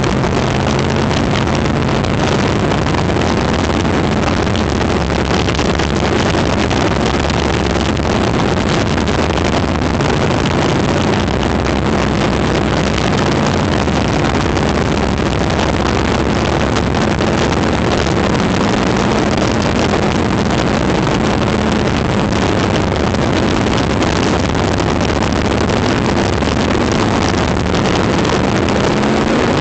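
Open-wheel sprint-style race car's engine running hard at racing speed, heard from the onboard camera over a steady rush of wind and track noise; near the end the engine note climbs as the car accelerates.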